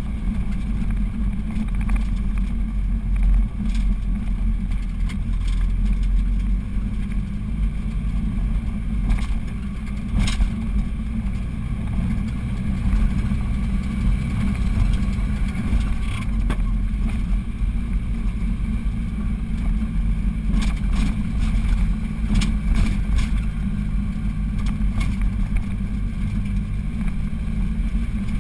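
A vehicle's engine and tyre rumble heard from inside the cab while driving uphill on a mountain road, steady and low, with a few short knocks or rattles now and then.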